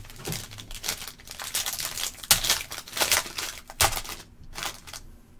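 Foil wrapper of a Topps Tier One baseball card pack crinkling and tearing as it is opened by hand: a run of sharp crackles, loudest in the middle and thinning out near the end.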